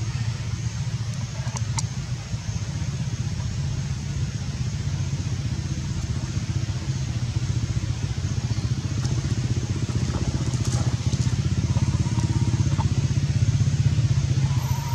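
An engine running steadily: a low rumble that grows a little louder near the end.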